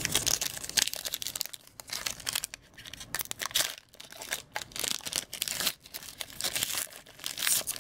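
Foil wrapper of a Panini Threads trading card pack crinkling and tearing as it is torn open by hand, in irregular crackles.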